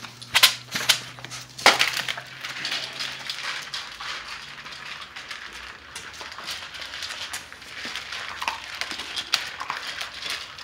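Bully puppies crunching hard dry kibble from a shared bowl: a dense, steady crackle of chewing. A few sharp knocks come in the first two seconds. The kibble is served hard, not softened, because the pups are teething.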